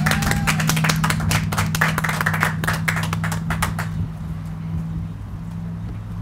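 Small audience clapping, a quick scatter of individual claps that dies away about four seconds in, over a steady low hum.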